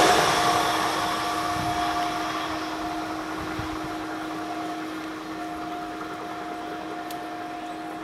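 BRB electric multiple unit train running away into the distance: its rolling noise fades steadily, leaving a steady two-note whine that carries on.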